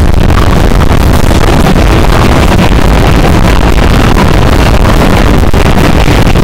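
Live rock band playing, with vocals, electric bass and drums, recorded through a camera microphone overloaded into constant distortion. The music blurs into a dense, steady noise with no clear notes.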